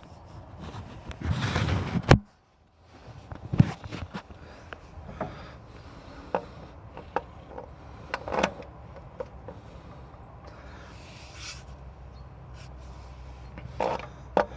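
Scattered knocks, clinks and scraping of metal parts being handled as a part is worked into place on an excavator engine, with a louder stretch of scraping about one to two seconds in.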